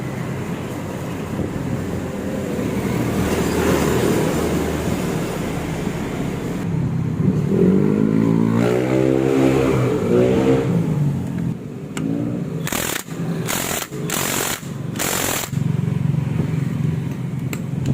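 Motorcycle engine running and revved, its pitch rising and falling several times about halfway through. Near the end come four short rushes of noise.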